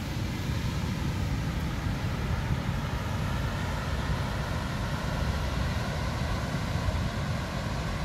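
Wind buffeting the microphone in a rough, fluttering low rumble, over the steady hiss of sea surf breaking on a sandy beach.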